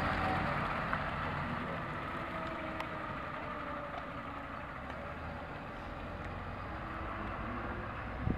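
A fire engine's engine idling: a steady hum with a hiss over it that slowly fades over the first few seconds.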